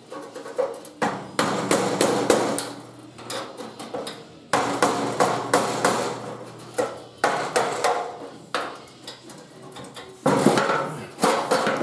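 Ball-peen hammer striking a rusty sheet-steel body panel of a Triumph TR3 again and again, in irregular clusters of blows. Each blow rings briefly in the metal.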